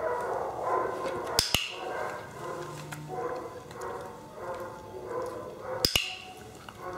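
A small white terrier whining repeatedly while sitting, with two sharp double clicks, one about a second and a half in and one near the end.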